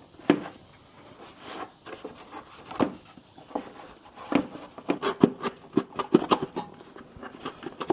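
Hard plastic cover being wiggled free from a Kawasaki Mule 3010 UTV, knocking and scraping against the surrounding parts in irregular clicks and knocks that come faster in the second half.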